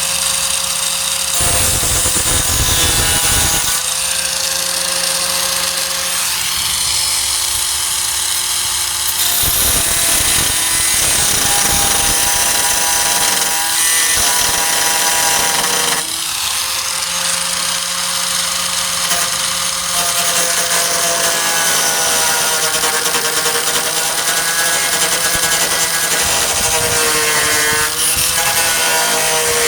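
Electric angle grinder running on the tailgate's sheet steel. Its motor tone sags and recovers several times, with louder stretches of grinding noise where the disc bears down on the metal.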